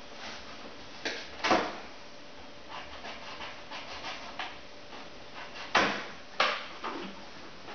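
Cardboard box and its packing being handled: several short scraping and rustling noises, the loudest about a second and a half in and twice around six seconds in.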